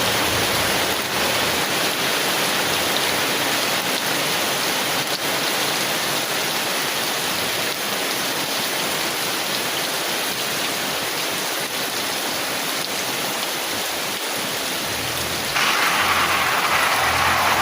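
Heavy rain pattering steadily on a thin tin umbrella. Near the end the rain abruptly gets louder and a low rumble comes in.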